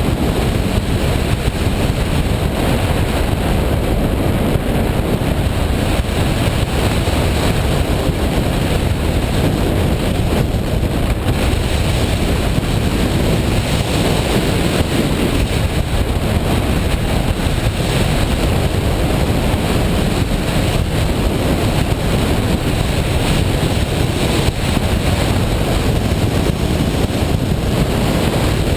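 A washing machine running with a steady, loud noise, heaviest in the low range, unchanging throughout.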